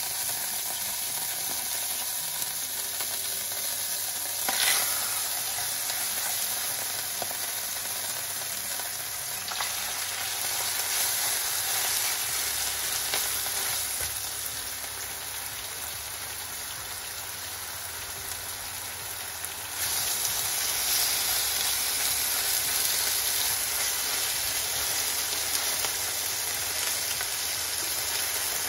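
Raw pork chops sizzling and frying in hot cooking oil in a nonstick frying pan. There is a short louder flare of sizzle about four seconds in, and the sizzle steps up clearly louder about two-thirds of the way through as another chop goes into the pan.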